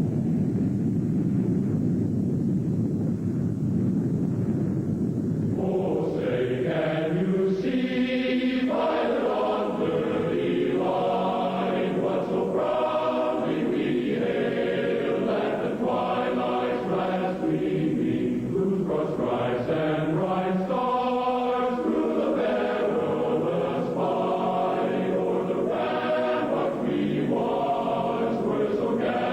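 A steady low rumble, which stops about five and a half seconds in and gives way to a choir singing long, held notes, with a short lull near the two-thirds mark.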